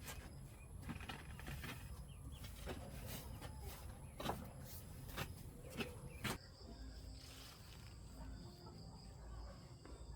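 Scattered sharp knocks and clicks, then, from about six seconds in, insects chirring steadily in a high even tone.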